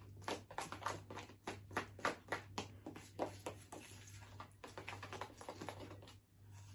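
Slime being mixed in a pot as the contact-lens-solution activator takes hold: quick, irregular sticky clicks several times a second, pausing briefly near the end. The sticky clicks are the sign of the slime coming together, still tacky, like chewing gum.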